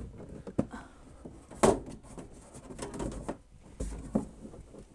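Scattered knocks and bumps from an over-the-range microwave being held up against and worked into its cabinet, the loudest about a second and a half in.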